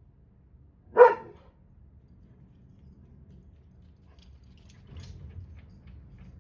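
A dog barking once, a single short loud bark.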